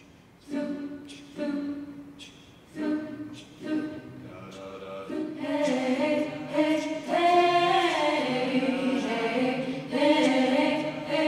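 Choir singing: short separate sung phrases at first, then from about five seconds in, fuller held chords that are louder.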